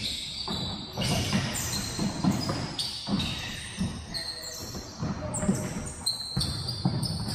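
Futsal being played in a large gym: sneakers squeak in short high streaks on the hardwood floor, the ball thuds, and players' voices echo around the hall.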